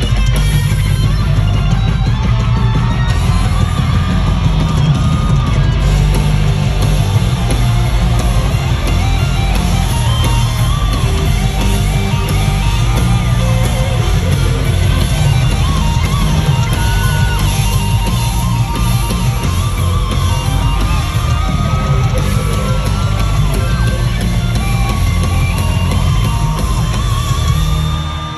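Loud live rock music with distorted electric guitar and heavy bass and drums, with yelling over it. The music drops away right at the end.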